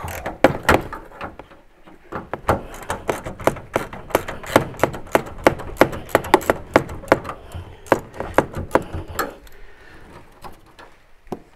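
Hand socket ratchet clicking in a fast run, about five clicks a second, as the bolts holding a van's sliding door are undone. The clicking starts about two seconds in and stops a couple of seconds before the end, after a few knocks at the start.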